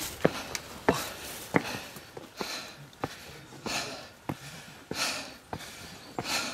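Footsteps climbing steep stone stairs, a step about every two-thirds of a second, with heavy breathing puffing between them.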